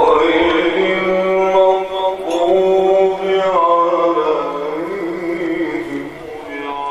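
A man's voice chanting long, drawn-out notes that bend and waver, in the melodic style of Quranic recitation.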